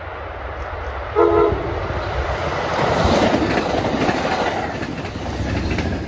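Amtrak passenger train sounding one short horn blast about a second in, then passing at speed, the wheel-on-rail noise swelling to a peak midway and fading as the train goes by.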